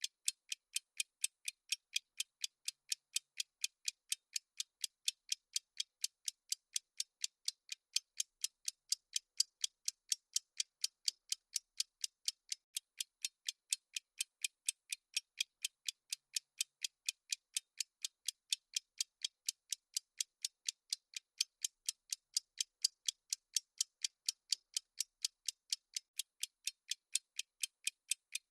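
Countdown timer's ticking sound effect: steady, evenly spaced high, crisp clock ticks, about three a second, with no break.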